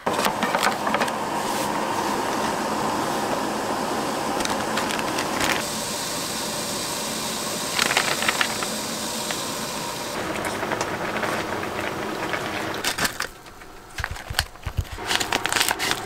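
A pot of kimchi udon broth boiling hard on a portable gas stove, a steady rushing hiss and bubbling; about thirteen seconds in it drops away, leaving a few light clicks and knocks of handling.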